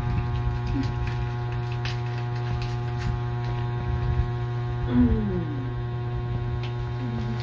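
A steady electrical hum, a low drone with many higher overtone lines above it. There is one short falling tone about five seconds in.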